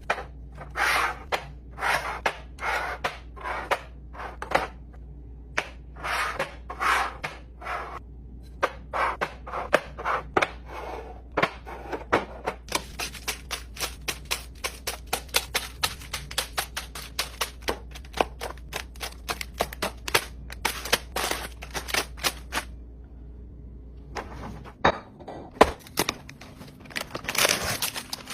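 Snack and food packaging handled during a pantry restock: bursts of crinkling and rustling, then about ten seconds of rapid small clicks and rattles. A low steady hum runs underneath and stops near the end.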